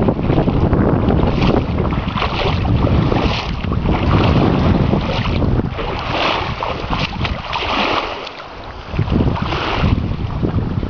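River water rushing over shallow rapids, a steady wash of white-water noise, with heavy wind rumbling on the microphone. The low rumble drops out briefly about eight seconds in.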